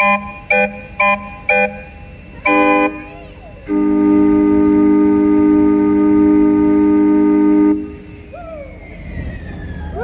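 Train-whistle calliope, a row of train whistles tuned to different pitches, sounding chords: a few short toots about half a second apart, one more short blast, then one long held chord of several whistle tones lasting about four seconds that stops about eight seconds in.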